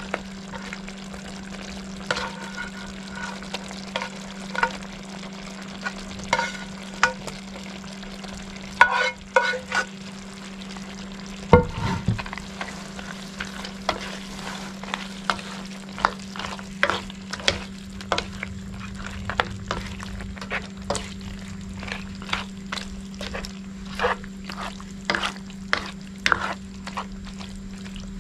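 A utensil stirring a pot of simmering coconut-milk stew with bamboo shoots and pork, with frequent clinks and scrapes against the pot and one louder knock partway through, over a steady low hum.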